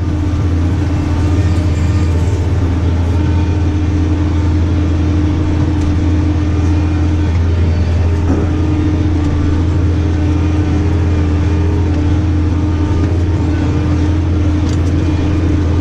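New Holland tractor engine running steadily under load, heard from inside the cab: an even drone with a constant low hum and no change in revs.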